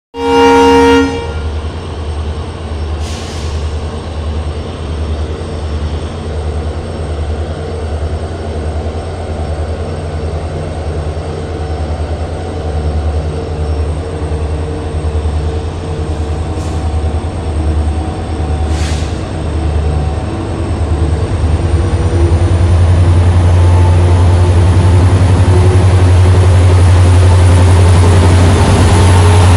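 A WDG4D diesel-electric locomotive's 16-cylinder two-stroke EMD engine sounds a short, loud horn blast, then runs with a slow, even pulse as it pulls the train away. About twenty seconds in it grows louder, with a rising whine, as it powers up and accelerates toward the listener.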